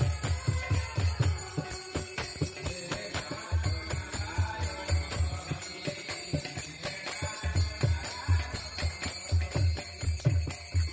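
Kirtan music: the deep bass strokes of a khol (mridanga) drum under the steady jingling clash of kartal hand cymbals, played in a regular rhythm.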